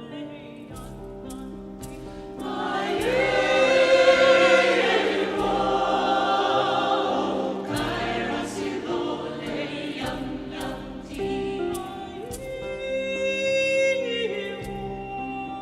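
A vocal ensemble singing in harmony with instrumental accompaniment. The voices swell in about two and a half seconds in, and again shortly before the end.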